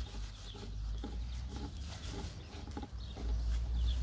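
Six-week-old puppies giving short play growls and yips as they tug together at a plastic sheet.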